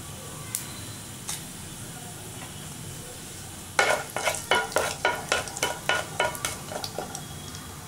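A wooden spatula stirring mustard and cumin seeds in hot oil in a nonstick kadai. About halfway through it makes a quick run of scrapes and knocks against the pan, about four a second, over the light sizzle of the oil.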